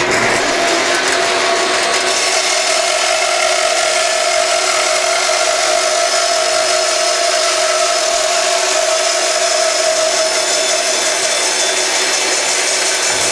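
Bandsaw resawing a dry block of spalted maple held against a jig fence, the blade cutting steadily down through the wood. The saw gives an even hum with a constant cutting hiss over it.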